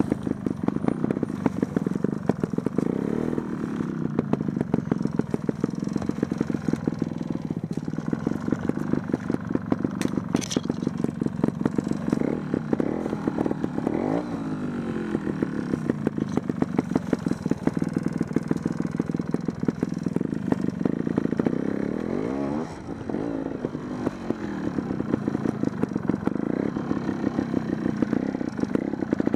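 Trials motorcycle's single-cylinder engine running at low revs while picking its way over rough ground, with the throttle opened and closed so the pitch rises and falls, most clearly about fourteen seconds in and again near twenty-two seconds.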